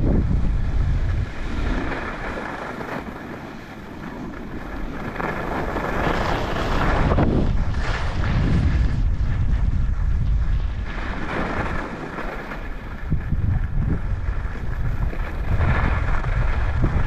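Wind buffeting the microphone at speed down a groomed ski slope, with the hiss and scrape of edges on packed snow swelling with each turn. It is quieter briefly a few seconds in, then loudest in the middle and again near the end.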